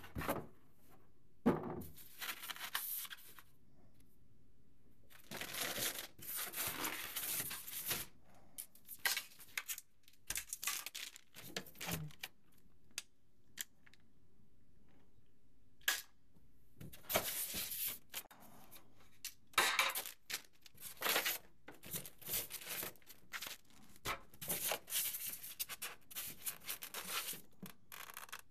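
Packaging being handled during unboxing: plastic bags, tissue paper and cardboard rustling and crinkling in irregular bursts, with a few knocks as parts are lifted out of the box.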